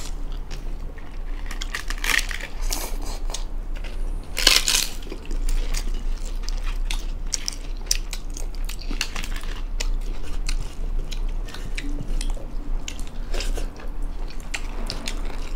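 Close-up eating sounds of two people eating with their hands: wet chewing and lip-smacking with many small clicks and crackles, and fingers working rice on metal plates. A louder crunch stands out about four and a half seconds in.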